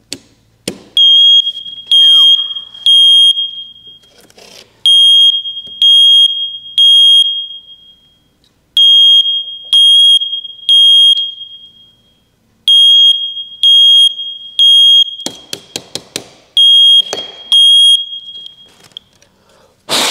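First Alert smoke detector's piezo horn sounding its alarm in the three-beep evacuation pattern: groups of three loud, high beeps, each group about four seconds apart. It goes off as soon as its 9-volt battery is fitted, with no smoke present: this is the faulty unit's false alarm. A few sharp clicks sound between the beeps near the end.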